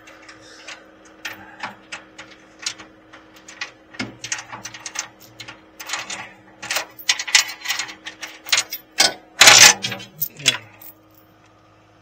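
Hand ratchet clicking in irregular runs as a bolt on the old Suburban's engine and transmission is worked loose, with metal tapping and a loud clatter about nine and a half seconds in, over a steady low hum.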